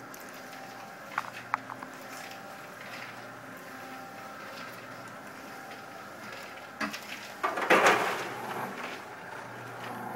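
Commercial popcorn machine's kettle stirrer running with a steady hum as it turns the coated popcorn, with two sharp clicks a little over a second in. About seven seconds in, a loud rattling clatter as the stainless kettle is tipped and the popcorn slides out into the steel tray.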